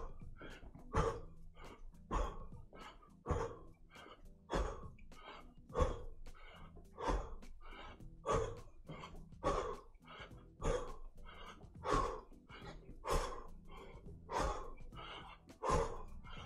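A man's sharp exhales and feet landing as he does ski hops, in a steady rhythm: a strong beat about every 1.2 seconds with a softer one between.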